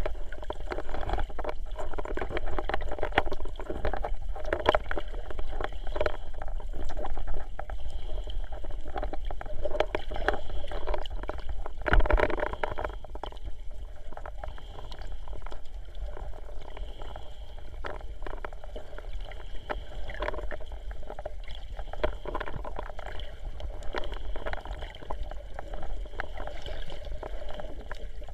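Seawater gurgling and sloshing, heard muffled through an underwater camera: a steady low rumble with irregular surges, the loudest about twelve seconds in.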